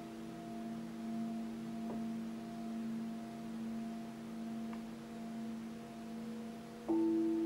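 Tibetan singing bowls struck with mallets, several long overlapping tones ringing and slowly wavering in loudness. A couple of light strikes add to them, and near the end a louder strike sets another bowl ringing strongly.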